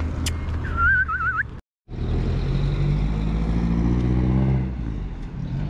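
A car engine accelerating nearby, its pitch rising for a couple of seconds and then dropping away, over a steady low street rumble. A short warbling whistle-like sound comes about a second in, just before a brief cut to silence.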